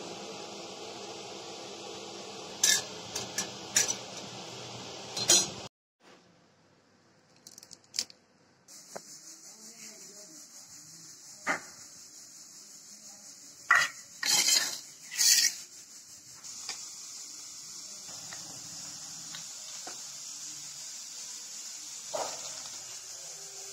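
Gas stove burner hissing steadily under a roasting green mango, with several sharp metal clicks and clanks. After a sudden cut, a steel bowl and utensils clink and clatter a handful of times as the roasted mango is handled.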